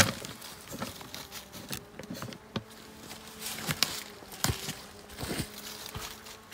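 Scattered crunches and clicks of steps on frozen snow and dry leaves, with a sharp knock at the start. A faint steady low hum runs under them from about a second in.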